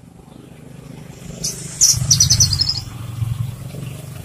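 Javan bush lark (branjangan) singing: a short burst of high song notes about a second in, then a fast, even trill of high notes. A low rumble runs underneath from about two seconds in.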